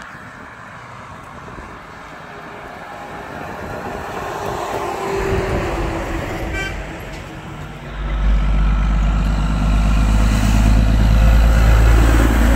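Two diesel semi trucks passing close by. A Freightliner Cascadia hauling a flatbed goes by first with tyre and engine noise. From about eight seconds in, a yellow Peterbilt 362 cabover pulling a tanker runs loudly past with a deep diesel rumble, its note dropping near the end, and a brief high toot sounds just before it.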